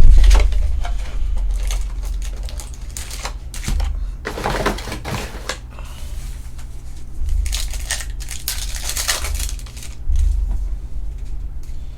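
Trading card packs and cards being handled and opened on a table: irregular rustling, scraping and crinkling, with a loud knock at the start and a few lighter knocks.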